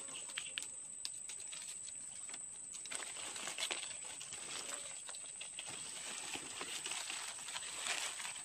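Dry leaf litter rustling, with scattered clicks and taps, as hands handle a slippery eel and push it into a mesh net bag.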